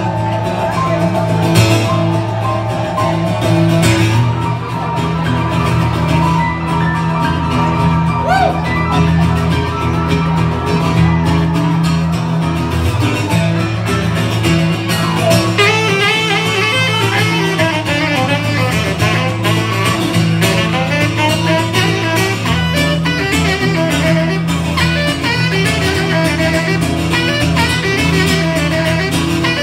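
Live instrumental music from an acoustic guitar and an electric keyboard, with a saxophone coming in about halfway through and playing over them.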